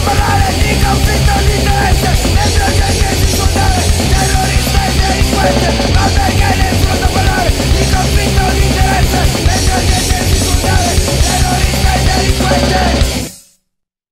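Live heavy punk/metal band playing loud in a small room: pounding drum kit under amplified electric guitar. The sound cuts off abruptly about thirteen seconds in.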